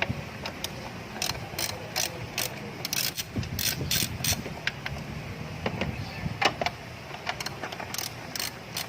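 Hand ratchet wrench clicking in short, irregular runs of sharp clicks while bolts are undone during removal of the radiator fan motor.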